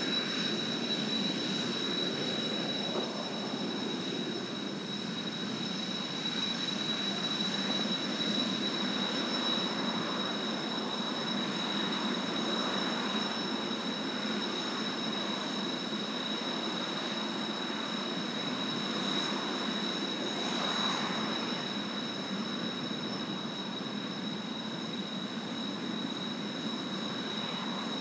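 Distant jet aircraft noise from Blue Impulse Kawasaki T-4 jets: a steady rumble that swells and fades a little a few times, with a steady high whine above it.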